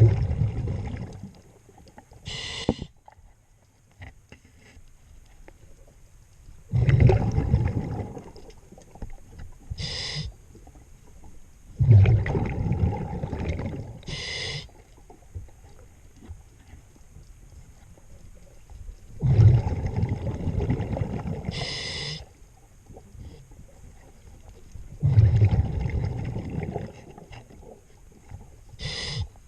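A scuba diver breathing through a regulator underwater: long, rumbling bubble exhalations of about two seconds each, alternating with short hissing inhalations, about one breath every six to seven seconds.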